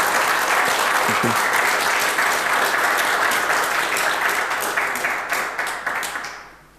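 Audience applauding, a dense run of clapping that fades out near the end.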